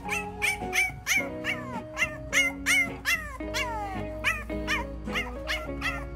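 French bulldog puppies yipping and whining in quick succession, two or three short calls a second, each falling in pitch, over background music with steady held notes.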